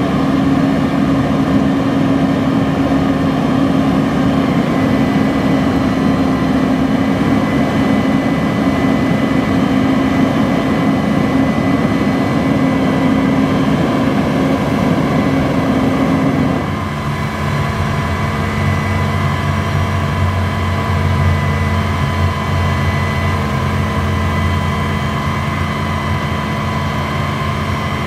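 Diesel engine of a 2007 Peterbilt 340 crane truck running steadily and driving the crane's hydraulics as the winch lowers the hook. About two-thirds of the way through, the engine's note steps down in pitch and gets slightly quieter.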